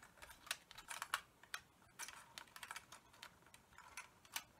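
Faint, irregular clicks and taps of hard 3D-printed plastic parts being handled and fitted together by hand, a few per second.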